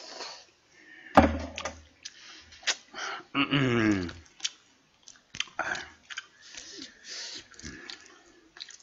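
Close-miked eating sounds: chewing, then crackling and clicking as cooked prawns are pulled apart and peeled by hand. A sharp knock with a brief low hum comes about a second in, and a short falling vocal sound comes near the middle.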